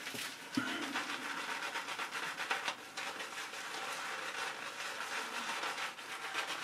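Shaving brush working soap lather on a face: a steady wet scrubbing made of many quick strokes.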